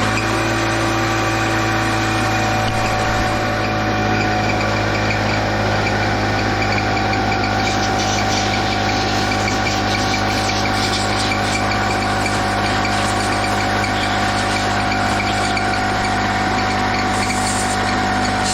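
A machine driven by a motor, started just before, running loudly and steadily at a constant pitch, with a low hum and a steady whine over it.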